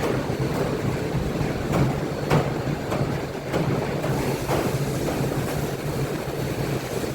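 A machine running with a steady low hum, with irregular clicks and knocks every second or so.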